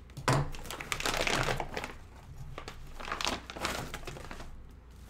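Filament packaging crinkling and rustling in two long stretches as a spool of PLA filament is unwrapped by hand.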